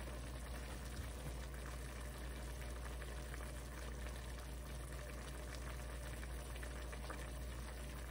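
Stock simmering in a wide metal pan around fork-tender chunks of root vegetable, a steady soft bubbling with small crackles.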